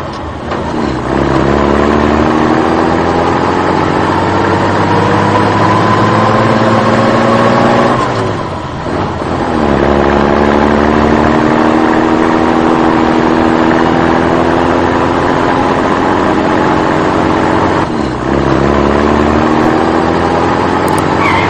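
A vehicle engine accelerating, its pitch rising steadily for about eight seconds, then dropping back and climbing again, three times over, above a steady low hum.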